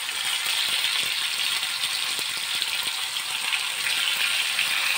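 Marinated rohu fish steaks frying in hot oil on an iron tawa: a steady sizzling hiss with fine crackling and a few faint clicks.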